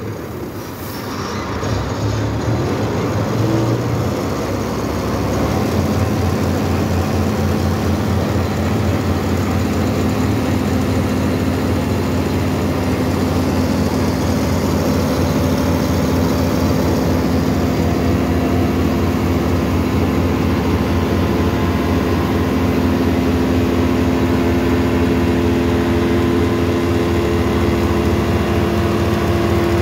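Hydraulic double-press hay baler running steadily under power. About six seconds in, a steady hum sets in over a fast low pulsing as the hydraulic ram pushes the hay through the press chamber.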